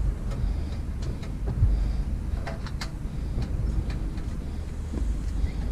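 Several sharp plastic clicks and light knocks as trim clips are pushed into place on a car fender, over a steady low rumble.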